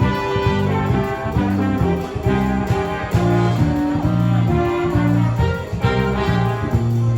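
Brass-led jazzy music, trumpets and trombones playing over a steady repeating bass line.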